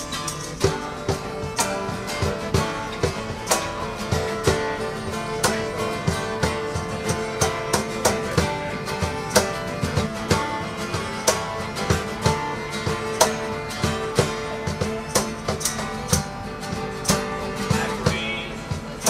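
Acoustic guitar strummed in a steady rhythm with a fiddle playing a folk tune over it.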